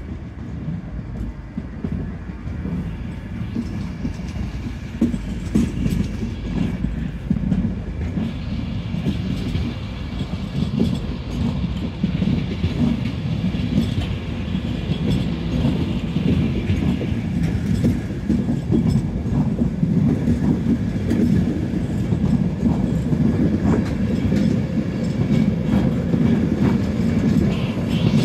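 Passenger train coaches running past at a station platform: a steady rumble of wheels on the rails with repeated clicks over the rail joints, growing louder through the pass.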